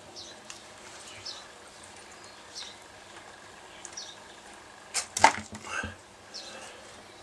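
Fingers handling small plug-connector pins and wires: light rustling, then a short cluster of sharp clicks and crinkling about five seconds in.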